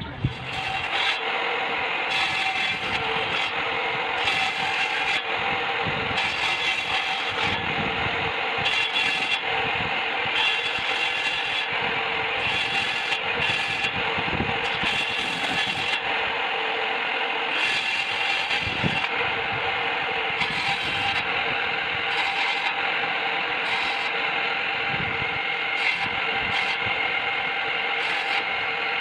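Wooden toy gun's mechanical sound-effect mechanism working without a break, a continuous scraping, clattering rattle of wood on wood.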